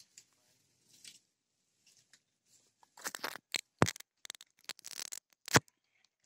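Footsteps crunching and crackling through dry leaf litter and twigs: a quiet start, then a close run of crackles in the second half with two louder thumps.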